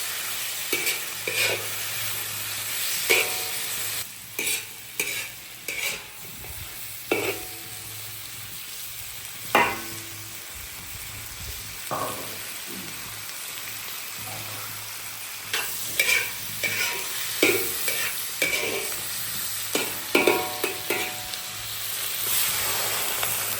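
Sausage and green peppers sizzling in a hot wok as they are stir-fried, with the spatula repeatedly knocking and scraping against the pan in short clusters.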